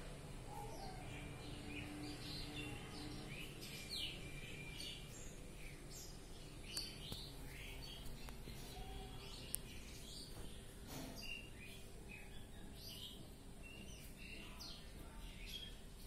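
Birds chirping: a scatter of short, high chirps and calls coming irregularly throughout, over a faint steady hum.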